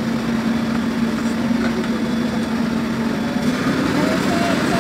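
Diesel engine of a Komatsu PC200 hydraulic excavator running with a steady hum. About three and a half seconds in, the hum gives way to a rougher, slightly louder engine sound.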